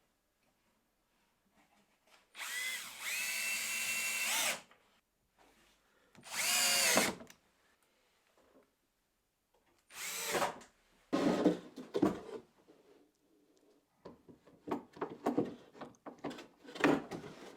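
Power drill driving screws through metal flush mount plates into plywood. It makes two runs of the motor: the first, about two seconds long, rises in pitch as it speeds up, and the second lasts about a second. Shorter bursts and knocks follow.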